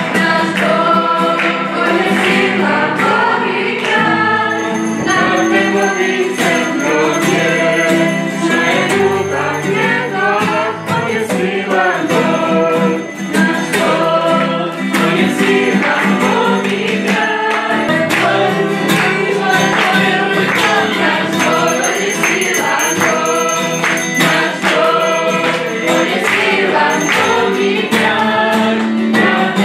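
A group of young voices singing a Christmas song together, accompanied by a strummed acoustic guitar.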